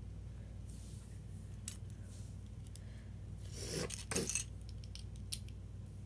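Small plastic LEGO minifigure pieces clicking and tapping as they are handled and pressed together: a few sharp clicks spread out, with a brief rustle of handling about three and a half seconds in. A low steady hum underneath.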